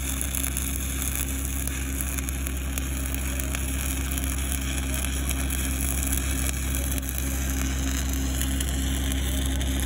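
7018 low-hydrogen stick electrode burning in a steady shielded metal arc weld: a continuous crackling hiss over a low steady hum.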